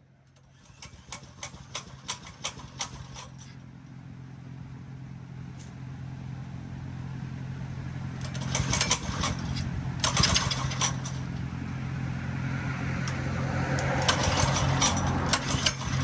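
Small 224cc single-cylinder mini bike engine running steadily and slowly growing louder, with three spells of sharp clicking and rattling over it.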